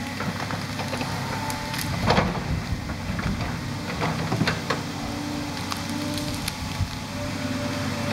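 Volvo EC210 tracked excavator's diesel engine working under load with a whine now and then, as its bucket rips out brush and tree roots. Wood cracks and snaps throughout, the sharpest cracks about two seconds and four and a half seconds in.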